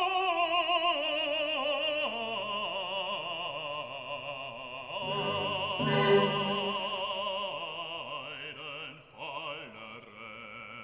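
Background music: classical operatic singing, a voice holding long notes with wide vibrato. It softens toward the end.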